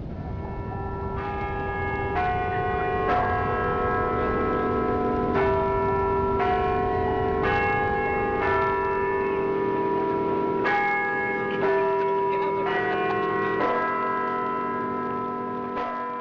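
A peal of bells ringing, a new strike about every second, each ringing on and overlapping the next. A low rumble sits beneath over the first half and fades away.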